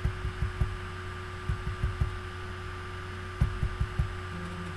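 Steady electrical hum with scattered, irregular soft low thumps.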